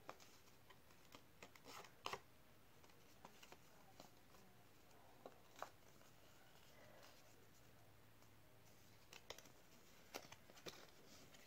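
Faint, scattered light taps and rustles of hands handling small objects on a surface, with long quiet stretches of room tone between them.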